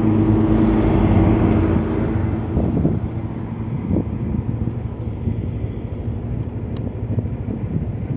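Yamaha Aerox V2 scooter's single-cylinder engine running with a freshly cleaned CVT while riding. A steady drone for the first two seconds, then the engine eases off and quiets to a low rumble with wind buffeting the microphone.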